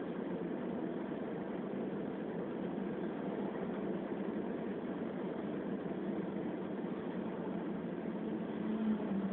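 Steady road and engine noise inside a moving car's cabin, picked up by a phone's microphone. Near the end it swells briefly as an oncoming lorry passes.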